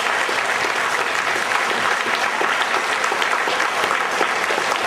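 An audience applauding steadily: many hands clapping together.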